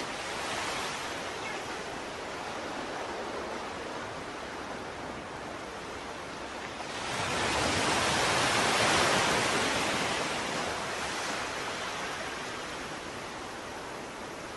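Ocean waves washing in a steady rush, with one larger wave swelling up about seven seconds in and slowly fading away.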